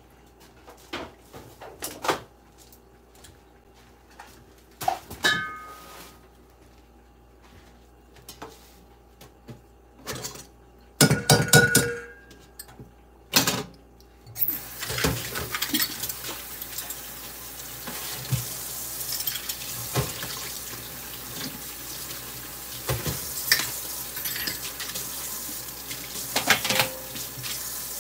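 Dishes being washed in a kitchen sink: scattered clinks and knocks of crockery and utensils, a couple of them ringing briefly. About halfway through, the tap comes on and runs steadily while the clinking goes on.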